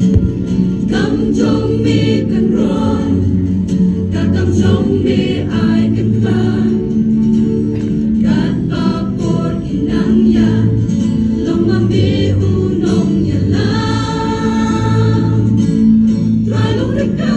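A mixed choir singing a gospel hymn, amplified through loudspeakers, with long held chords.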